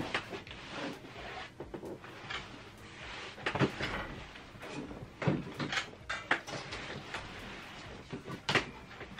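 IKEA Balkarp sofa bed being handled and shifted by hand: irregular knocks and bumps of its frame and legs with rustling of the fabric, the loudest knocks about three and a half, five and a half and eight and a half seconds in.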